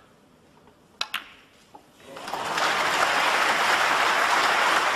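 Snooker balls clicking sharply as the cue ball is struck and makes contact about a second in, with a smaller click soon after. An arena audience then breaks into applause for the pot, building quickly and holding.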